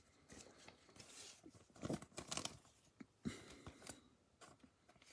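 Faint, intermittent crinkling and rustling of a trading-card pack's wrapper and cards being handled, in a few short spells.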